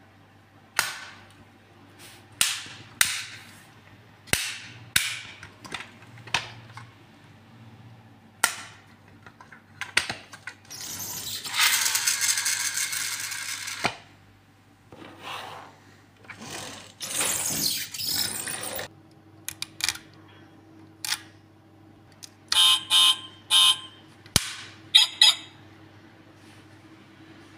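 Small diecast metal model car being handled: a string of sharp clicks as its opening doors and hood are snapped shut. Later come two stretches of hissing noise a few seconds long and a quick run of short pulsed sounds.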